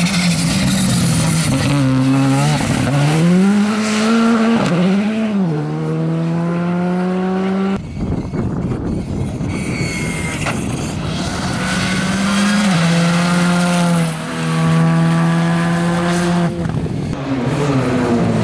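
R5 rally cars with turbocharged four-cylinder engines (Škoda Fabia R5 and Hyundai i20 R5) accelerating hard through the gears: the engine note climbs, then drops sharply at each upshift, over several separate passes that cut abruptly one to the next.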